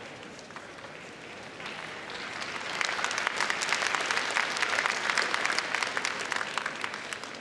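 Arena audience applauding: the clapping builds about two seconds in, is loudest in the middle and dies away near the end.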